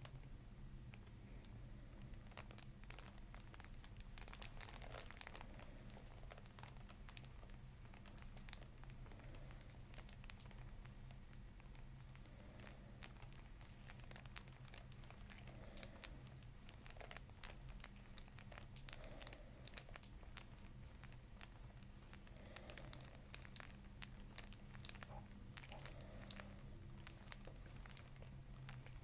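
Faint, scattered crinkling and crackling of the paper headrest cover and hair under fingers cradling the back of the head, over a steady low hum.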